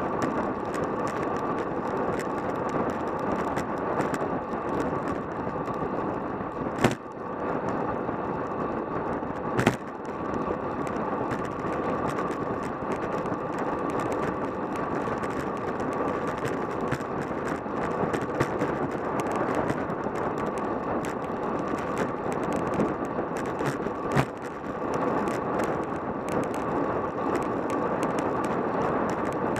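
Steady rush of wind and tyre noise on a road bicycle's camera at about 30 mph, with three sharp knocks, about 7, 10 and 24 seconds in.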